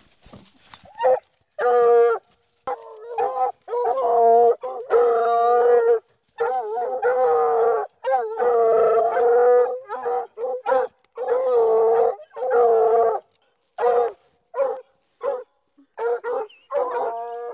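Walker coonhounds baying at quarry holed up under a rock, the way hounds bay when they have game treed or cornered. The calls are long drawn-out bawls mixed with short chop barks, and the chops come quicker near the end.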